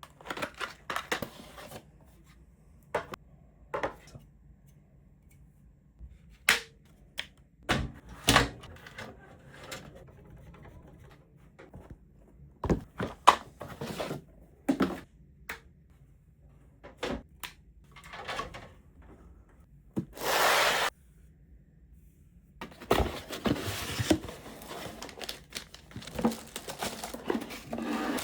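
Computer parts being handled and fitted during a PC build: a string of separate clicks, taps and knocks of plastic and metal parts, with a hiss-like scraping noise lasting about a second around two-thirds of the way through and a busier patch of rustling and clicking after it.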